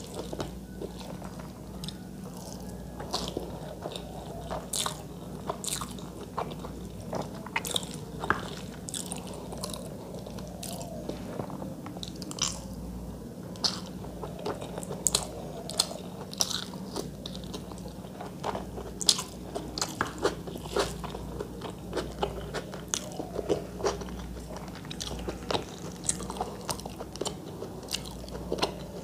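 Close-miked eating sounds of someone eating rice and chicken curry by hand: many short, irregular wet smacks, bites and crunchy clicks of chewing, over a faint steady low hum.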